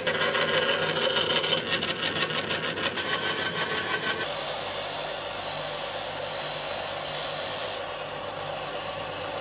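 Benchtop bandsaw cutting through thin plywood with a dense rasping whir. About four seconds in the cutting stops and a steadier machine whir carries on, dropping a little near the end.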